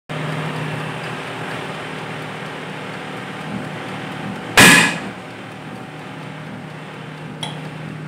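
Countertop electric oven running with a steady low hum while a plastic phone charger melts inside. A little past halfway there is one loud, sharp burst lasting under half a second, and a faint click near the end.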